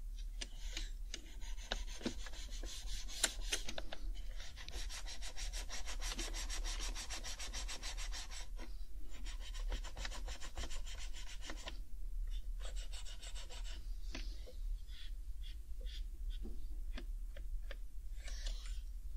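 Alcohol wipe rubbed briskly over the plastic case and keycaps of an HHKB Professional 2 keyboard, scrubbing in spells of fast back-and-forth strokes. Near the end it thins to lighter scattered scratches and small clicks.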